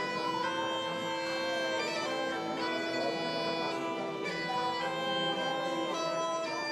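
Bagpipe music: a steady drone held under a melody of changing notes on the chanter.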